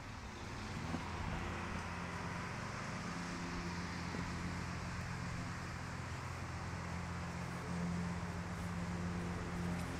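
A steady low motor hum with a constant rushing noise over it, unchanging throughout.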